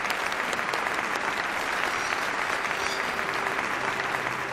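Studio audience applauding, a dense steady clapping that begins to fade near the end.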